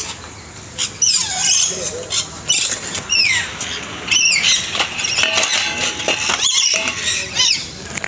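Parrots calling with shrill, repeated squawks, several of them sliding down in pitch.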